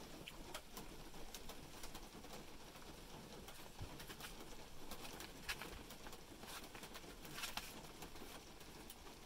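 Livestock guardian dog puppies shuffling and pawing at one another on sawdust and a plastic tarp: faint rustling with scattered soft scratches and clicks.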